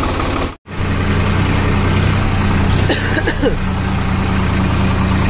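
Tractor diesel engine running steadily, with a brief drop-out about half a second in.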